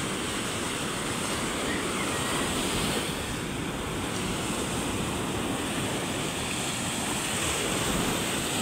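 Large ocean waves breaking and washing up a beach: a steady rush of surf.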